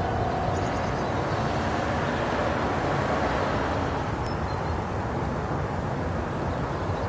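Steady outdoor background noise: an even low rumble with hiss, like distant traffic.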